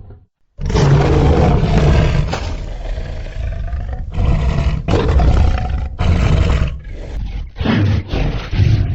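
Wyvern roar sound effect made from animal recordings. One long, rough roar starts about half a second in, followed by several shorter roars with brief breaks between them.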